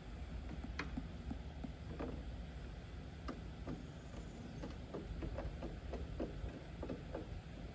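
Scattered light clicks and ticks, several a second, of hands working stripped wire ends into the breaker terminals inside a metal electrical panel.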